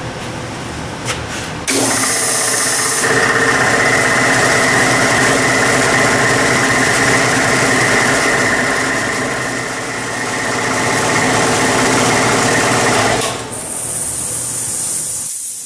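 The 5 hp single-phase motor and two-stage IMC compressor pump start about two seconds in as the new magnetic contactor pulls in. They run steadily for about eleven seconds, then shut off at cut-out with a short hiss of released air. The contactor switches cleanly, with no fluttering or electrical noise.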